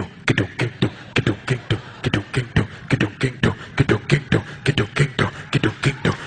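A man beatboxing into a handheld microphone: a fast, even rhythm of mouth-made clicks and low thumps.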